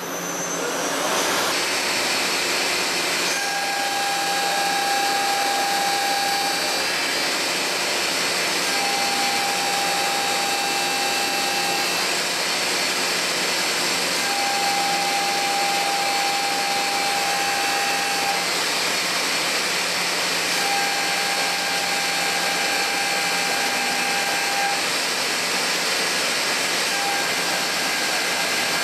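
Hwacheon Hi-TECH 350B CNC turning center skiving a carbon steel (SM45C) spur gear: a steady hiss of machine and cutting noise. Over it a pitched whine comes and goes, about five times, each lasting three to four seconds.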